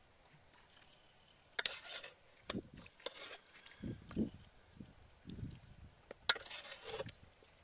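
Fish soup being ladled into a ceramic bowl: a few sharp clinks of a metal ladle against the pot and bowl, with soft plops and splashes as fish pieces and lemongrass drop into the broth.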